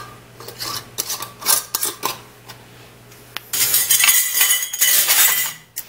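Metal canning lids being set onto glass mason jars and handled, clinking: scattered light clicks, then a denser couple of seconds of clattering from about three and a half seconds in.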